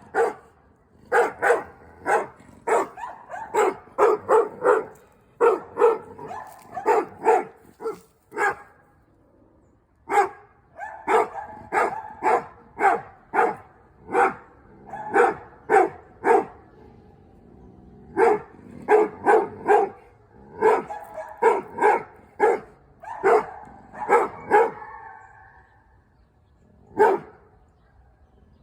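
Dogs barking in quick runs of short barks, broken by a few pauses of a second or two.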